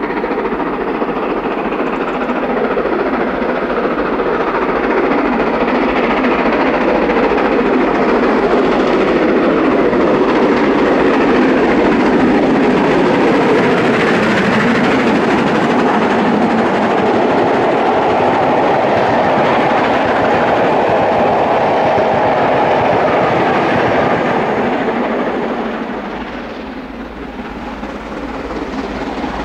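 Steam locomotive 46233 Duchess of Sutherland, a four-cylinder LMS Princess Coronation Pacific, working hard up the bank with its train, loudest as it passes close by, with its exhaust and the coaches' wheels clacking over the rail joints. The sound drops away a few seconds before the end, then a second approach begins.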